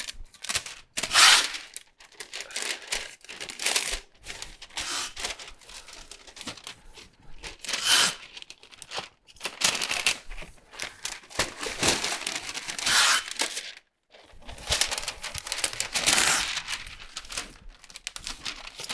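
Brown masking paper crinkling and blue masking tape ripping off the roll as a 3M hand masker dispenses taped paper that is wrapped around a cabinet drawer box, in irregular bursts of rustling and tearing.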